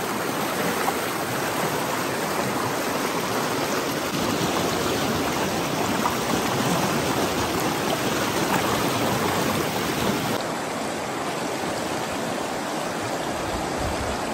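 Mountain stream rushing over boulders in shallow rapids: a steady, loud rush of water.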